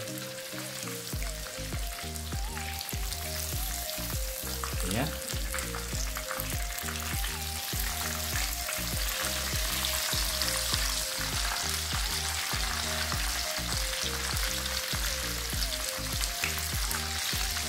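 Breaded fish pieces deep-frying in a pan of hot oil at medium heat, a steady sizzle and bubbling. Metal tongs click now and then against the pan as the pieces are turned and lifted out.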